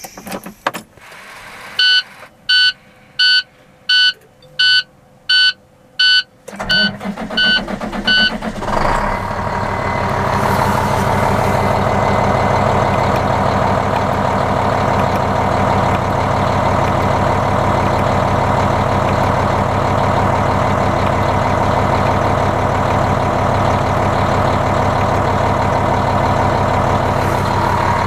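Dashboard warning chime of a 2008 International 7600 truck beeping at an even pace, about every two thirds of a second, then a few quicker beeps as the diesel engine starts about six and a half seconds in. The engine then idles steadily, heard from inside the cab.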